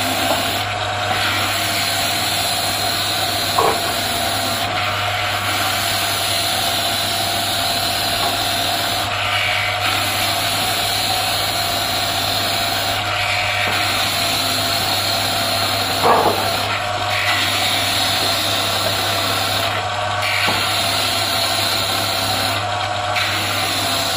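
Belt-driven electric cutting machine running steadily with its small rotary cutter carving round scallop cuts into a wooden cricket bat, the cutting noise easing briefly every three to four seconds between cuts. Two short knocks, one near four seconds and one about sixteen seconds in.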